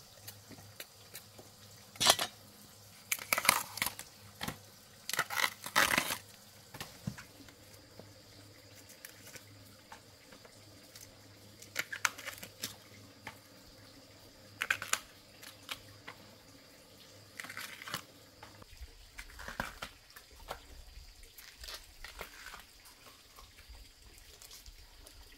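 Irregular short bursts of tearing and crinkling a few seconds apart, the strongest in the first six seconds: the sound of tough bamboo shoot husks being torn off by hand.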